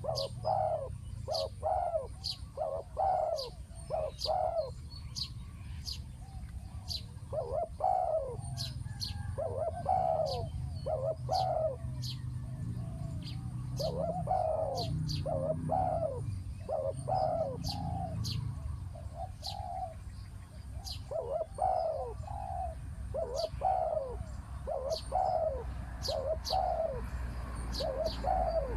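Spotted doves cooing: repeated phrases of short, soft coo notes with brief pauses between phrases.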